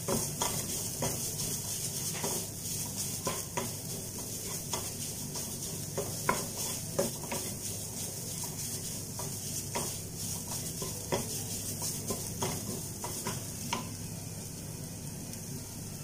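A wooden slotted spatula stirring and scraping chicken masala around a white-coated frying pan, in irregular strokes over a steady sizzle of frying; the strokes stop about two seconds before the end, leaving the sizzle.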